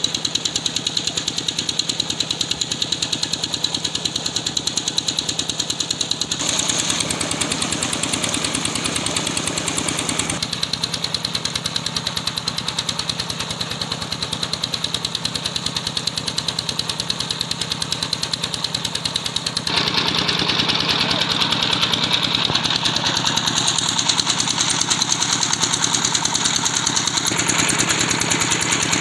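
Single-cylinder Peter diesel engine running steadily with a fast, even knock, driving a tube-well pump. Water gushes from two delivery pipes into a brick channel.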